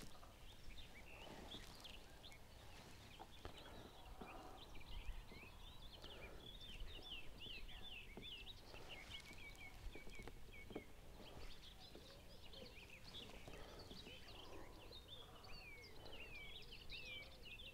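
Faint outdoor ambience of small birds singing: many quick chirps and warbles, with a short rapid trill near the end, over a low background rumble.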